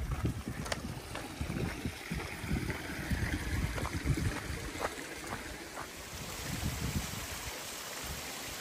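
Gusty wind buffeting the microphone outdoors, with an even hiss and a few scattered sharp clicks.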